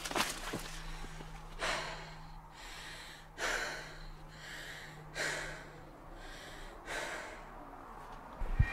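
Heavy breathing from a young man: four deep breaths, about one every one and three-quarter seconds.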